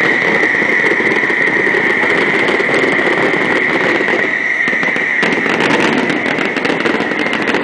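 Fireworks display going off, with popping and crackling that thickens into a dense burst of crackles about five seconds in, over a continuous crowd hubbub. A steady high whine runs underneath the whole time.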